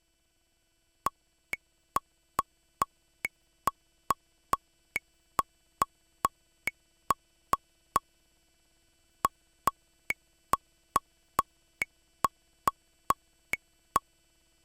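Akai MPC One metronome clicking steadily, a bit over two short beeps a second, with a higher-pitched accent click on every fourth beat; the clicks pause for a few beats about halfway through, then resume.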